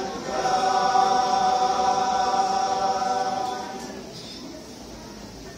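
Mixed choir of men and women singing, holding one long chord that fades away about four seconds in.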